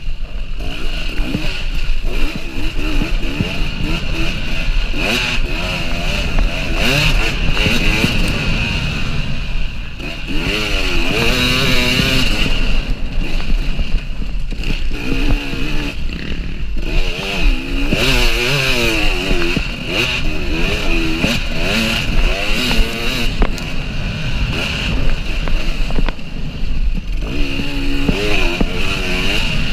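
KTM EXC 300 two-stroke single-cylinder enduro engine under hard riding off-road, its pitch rising and falling again and again as the throttle is opened and closed.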